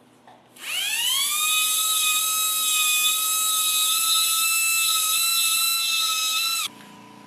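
Dental handpiece (drill) spinning up with a rising whine about half a second in, then running at a steady high whine for about six seconds before cutting off suddenly, while a bruxism night guard is being adjusted.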